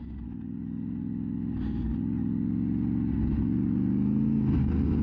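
Motorcycle engine running steadily. It grows louder over the first two seconds, and its pitch wavers slightly.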